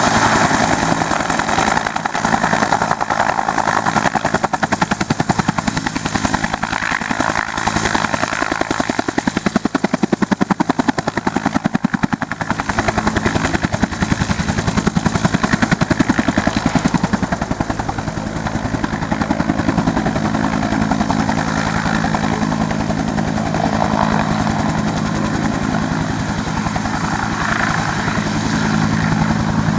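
Helicopter flying nearby, its rotor chopping in a fast, even beat over a steady engine drone.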